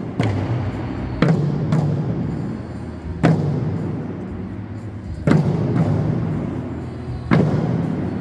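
Okinawan eisa barrel drums (ōdaiko) struck together by several dancers: six heavy beats, mostly one about every two seconds with a quick pair near the start, each ringing on in a large echoing hall.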